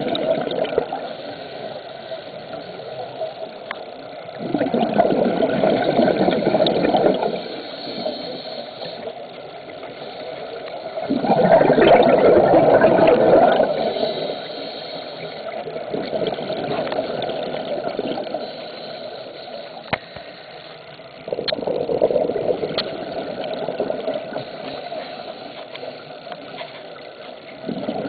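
Scuba diver breathing through a regulator underwater: bursts of exhaled bubbles, each about two to three seconds long and several seconds apart, with quieter stretches of water noise between.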